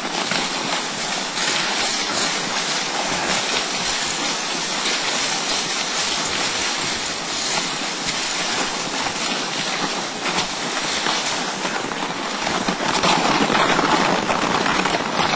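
Dog sled runners sliding over snow on a trail: a steady hissing rush that grows a little louder near the end.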